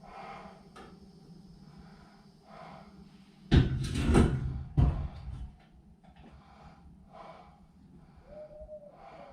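A heavy metal clunk and rattle, with a second sharp knock about a second later, as the chop saw is handled and set down.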